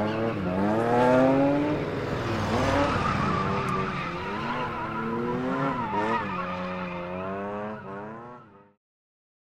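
Twin-turbocharged 5.0-litre Mercedes M119 V8 of a W124 E500 drift car revving, its pitch climbing sharply about a second in and then rising and falling several times, with tyres squealing as it slides out of a corner. The sound fades out about eight and a half seconds in.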